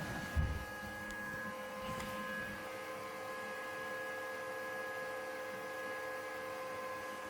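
Small CNC router running, a steady electric hum made of several held tones from its motors, with one low thump about half a second in.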